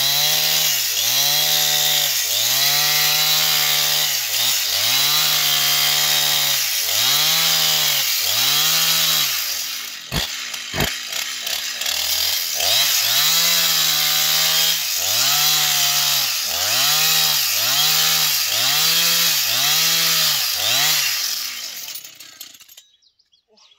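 Husqvarna two-stroke chainsaw cutting deep into a large log, the engine pitch rising and falling about once a second as the bar is worked through the wood. There is a brief dip with two sharp clicks about halfway through, and the saw stops shortly before the end.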